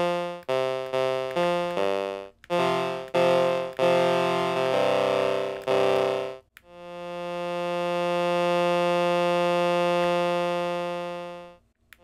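Teensy 3.6 DIY synthesizer playing buzzy, overtone-rich tones through its ADSR envelope, keyed by push buttons. For the first six seconds or so it plays a quick run of short notes, each starting sharply and dying away, some overlapping; then one long note swells in slowly, holds steady, and fades out near the end, as another note begins to swell.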